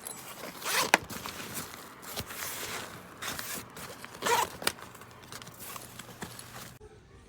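Zipper on a MATEIN laptop backpack being pulled in short runs, loudest about a second in and again past four seconds, with a sharp click and rustling of the fabric between.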